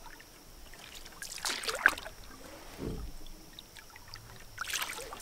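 Canoe paddle strokes in lake water: the blade dipping and pulling, with splashing and dripping twice, a few seconds apart. A dull low knock comes about three seconds in.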